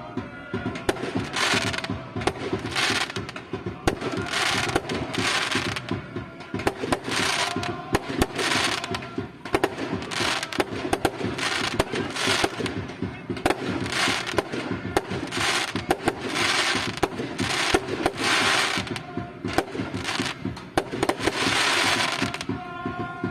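Drums played in a fast, dense pattern, with repeated hissing crashes about half a second to a second long on top.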